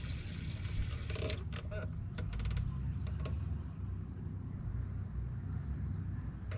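Sharp clicks and a brief fast rattle of fishing gear being handled, over a steady low hum.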